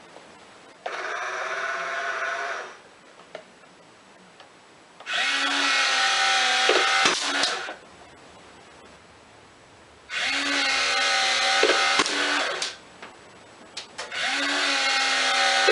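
Small remote-control Tiger tank running in four short bursts of about two seconds each, a whirring, tool-like mechanical sound with a steady hum in it, separated by short pauses.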